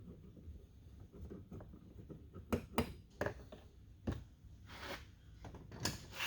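Scattered light clicks and knocks, about half a dozen, as small door-panel bolts are backed out by hand and handled, over a low steady hum.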